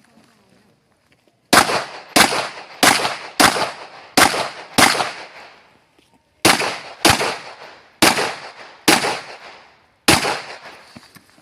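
Eleven pistol-calibre gunshots, each followed by a short ringing tail. The first six come about a second and a half in, evenly at roughly one and a half shots a second. After a pause of about a second and a half come five more, further apart and unevenly spaced.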